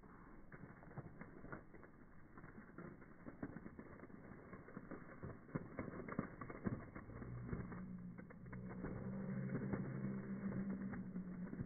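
Coke-and-Mentos fountain spraying foam out of a plastic bottle and spattering onto concrete, played back in slow motion so it comes through as faint, deep crackling and popping. A low hum joins in over the last few seconds.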